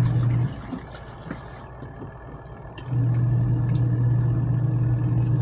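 Costway twin-tub washing machine's wash motor humming as it churns the load, cutting out about half a second in and starting again a little over two seconds later, the pause where the wash cycle reverses the agitator's direction.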